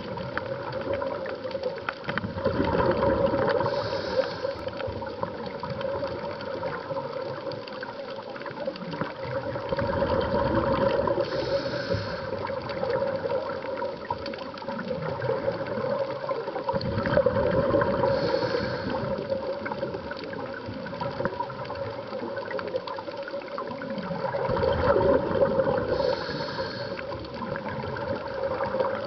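Scuba diver breathing through a regulator underwater: the inhale and the gush of exhaled bubbles come back in slow cycles, four times, about seven seconds apart.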